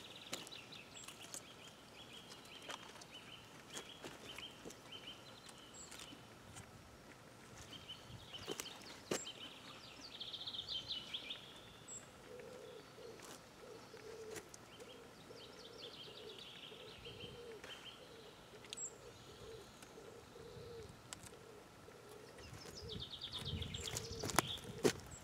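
Birds singing: high chirping trills come and go, and a low call repeats steadily through the middle. A few sharp clicks, and a brief louder rustle with knocks near the end.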